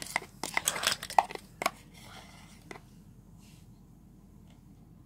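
Thickening homemade slime being stirred in a plastic cup: a quick run of sticky clicks and scrapes in the first couple of seconds, then only a few faint ticks.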